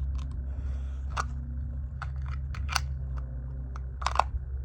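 Light clicks and taps from a handgun and holster being handled, about nine in all, scattered unevenly and strongest a little under three seconds in and just after four seconds, over a steady low rumble.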